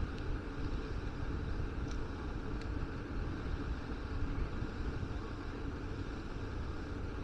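Wind rumbling on the microphone over a steady hiss of open-air ambience, with two faint ticks a little under a second apart about two seconds in.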